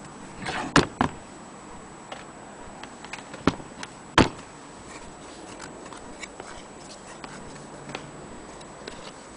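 A few sharp clicks and knocks, the loudest two pairs about a second in and around three and a half to four seconds in, with lighter scattered ticks between them over a steady hiss.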